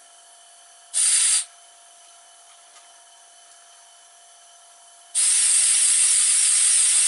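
Compressed air hissing into a model diagonal paddle steamer engine as the air supply is opened: a short burst about a second in, then a loud, steady hiss from about five seconds in.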